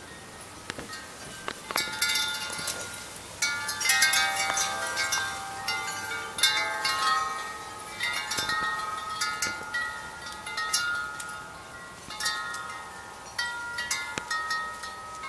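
Chimes ringing, struck irregularly every second or so, several clear tones overlapping and dying away.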